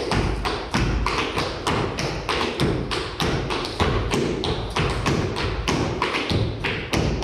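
Appalachian clogging: clog shoes striking a wooden floor in a fast, continuous rhythm of sharp taps and heavier stamps, about four or five a second.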